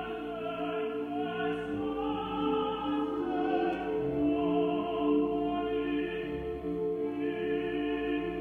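Music: a wavering, operatic-style singing voice over sustained held low tones.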